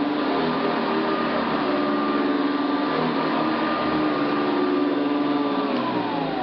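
Hoover Decade 80 upright vacuum cleaner running steadily, its motor giving a high whine over a rushing hiss. Near the end it is switched off and the whine slides down in pitch as the motor spins down.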